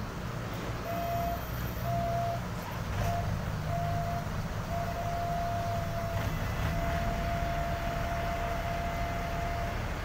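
Komatsu mini excavator's diesel engine running with a low rumble, while an electronic warning beeper sounds in short, irregular beeps, then one long tone of about three seconds that stops just before the end.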